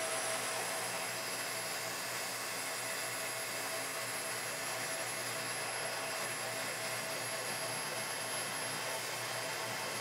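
Ridgid oscillating spindle sander running steadily, a plywood edge being fed against its sanding drum, with a constant motor hum and a faint steady tone.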